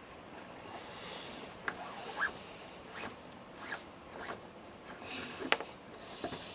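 Gutted 550 paracord rubbing and zipping as it is pulled through and tightened around a knife handle, in a series of short swishes, with one sharp click about five and a half seconds in.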